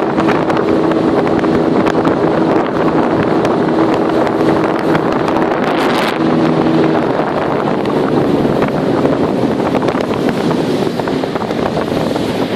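Speedboat's 40 hp outboard motor running at speed as the hull cuts through the water, with heavy wind noise on the microphone. The engine's steady hum fades about seven seconds in, leaving mostly the rush of wind and water.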